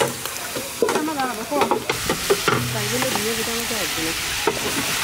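Long-handled paddles scraping and knocking against a large steel pan as a big batch of chicken and brinjal curry is stirred, over a steady sizzle of frying that grows a little louder in the second half.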